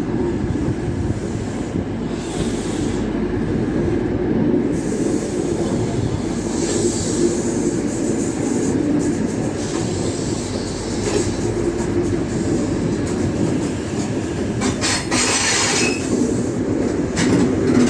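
East Midlands Railway HST led by a Class 43 power car moving through the station: a steady diesel drone mixed with wheel-on-rail noise. A short hiss of noise comes about fifteen seconds in.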